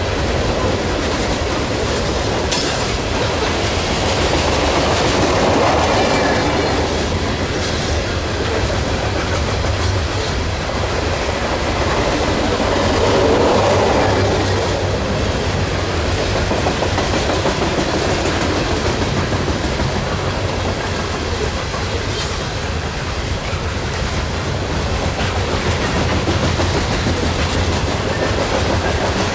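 Loaded coal cars of a freight train rolling past, steel wheels running on the rails in a steady rumble that swells twice and eases again.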